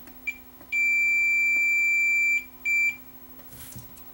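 Multimeter continuity beeper sounding as the probes make and break contact: a short beep, a long steady high beep of nearly two seconds, then another short beep. The beep shows that the resistance across the freshly cleaned contacts is now low enough to register as continuity.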